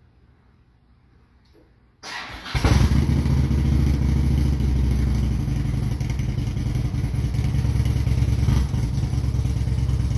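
Harley-Davidson V-twin motorcycle engine cranked by its starter about two seconds in, catching at once and then running steadily and loudly.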